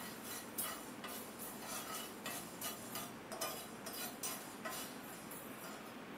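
Whole spices being stirred with a spoon in a non-stick frying pan, with repeated light scraping strokes and the seeds rattling against the pan. They are being dry-roasted on low heat.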